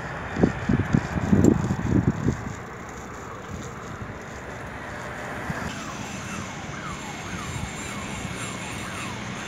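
Wind buffeting the microphone in uneven gusts for the first couple of seconds over a steady outdoor background. From about five and a half seconds in, a run of short falling chirps repeats about twice a second.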